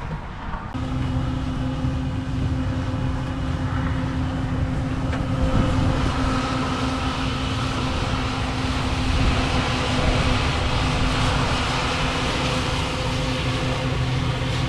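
Engine running steadily, a low even hum that starts abruptly about a second in.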